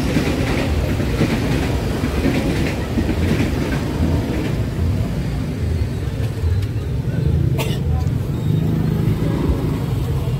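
Steady low rumble of road traffic, with one sharp click about three-quarters of the way through.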